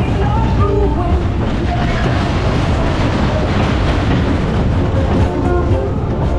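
A Superbob fairground ride running, its cars rumbling round the track, under loud ride music with a heavy bass.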